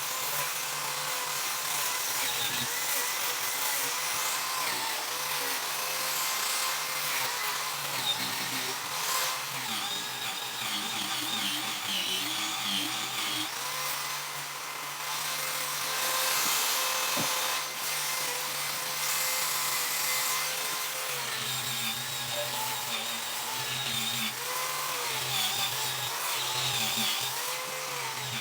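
An electric power tool runs on wood without stopping, its motor pitch wavering up and down as the load changes.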